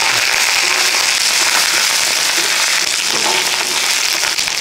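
Curry leaves, garlic and ginger sizzling and crackling in hot sesame oil in an iron kadai, stirred with a wooden spatula, a steady dense crackle throughout.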